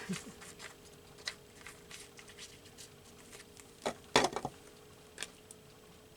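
Small clicks and taps of paper cutouts and craft tools being handled on a tabletop, with a sharper cluster of knocks about four seconds in, over a faint steady hum.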